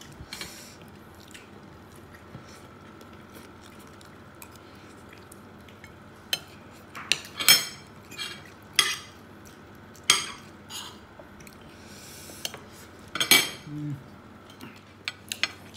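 Metal cutlery clinking and scraping against a ceramic dinner plate while eating: quiet at first, then several sharp clinks in the second half.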